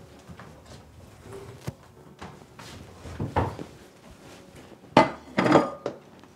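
Small knocks and clinks of kitchen handling, then a ceramic plate of food with a fork on it set down on a wooden table with a sharp clunk and clatter about five seconds in.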